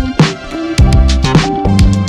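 Background music with a steady drum beat: regular low kick-drum thuds and sharp hits under held instrument notes.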